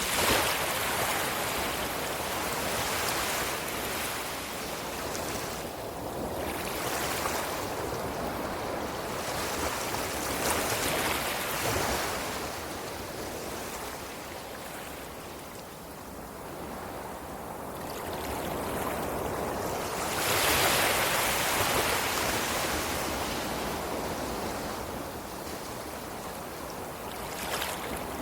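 Ocean surf: waves breaking and washing in, a steady rush that swells and ebbs every few seconds, with the biggest surges right at the start and about twenty seconds in.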